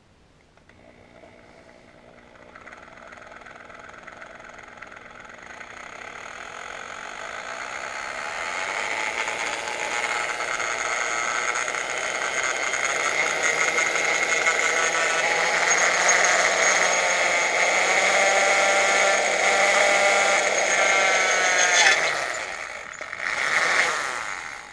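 Cordless drill boring a hole through the aluminium anti-ventilation plate of an outboard's lower unit. It runs as a steady whine that grows louder as the bit cuts deeper, shifts pitch near the end and stops abruptly, then gives one short extra spin as the hole is finished.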